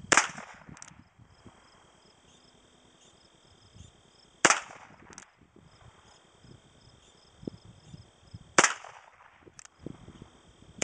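Three shots from a Ruger Single Six .22 rimfire single-action revolver, about four seconds apart. Each is a sharp crack with a short tail, followed a moment later by a softer click as the hammer is thumbed back for the next shot.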